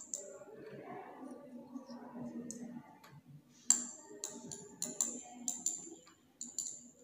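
Needle tapping and clinking against a glass watch glass while stirring a few drops of safranin stain. A run of sharp, ringing clinks starts about halfway in, roughly two a second; the first is the loudest.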